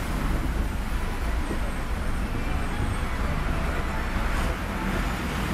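Steady running noise of a moving bus, heard from inside the cabin: a low engine rumble under an even hiss of tyres and rain on a wet road.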